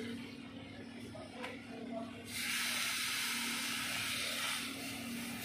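A steady hiss of gas or spray from a nozzle starts abruptly a little over two seconds in and keeps going.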